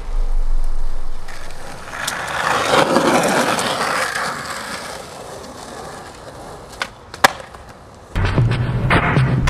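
Skateboard wheels rolling on concrete, fading away, with a sharp board clack about seven seconds in. Music comes in suddenly near the end.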